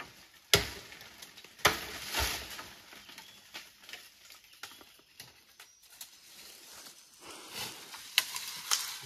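Several sharp knocks: two about a second apart near the start and two more close together near the end, with faint rustling and crackling between.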